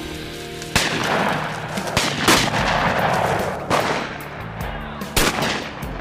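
About five shotgun shots at flushing upland game birds, spaced roughly one to two seconds apart, each a sharp crack that trails off quickly.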